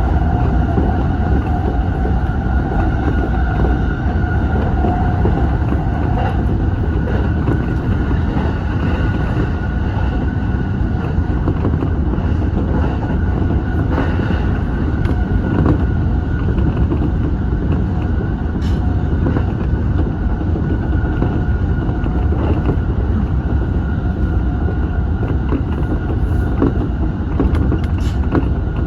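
Electric commuter train running at speed on the Keiyo Line. There is a loud, steady rumble of wheels on rail with a steady motor whine over it, and a few sharp clicks here and there.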